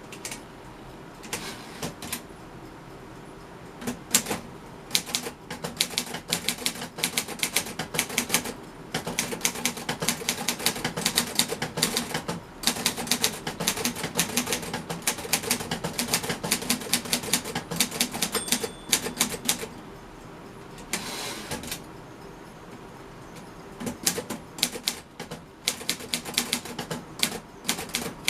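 Manual typing on an Underwood Finger-Flite Universal portable typewriter of about 1950: the type bars strike the paper in quick runs of sharp clacks, broken by short pauses, and thinning out to scattered strikes near the end.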